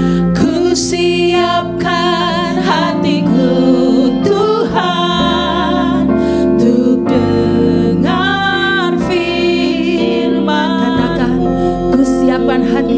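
Two women singing a slow Indonesian worship song into microphones, with long held notes that waver in pitch, over a sustained keyboard accompaniment.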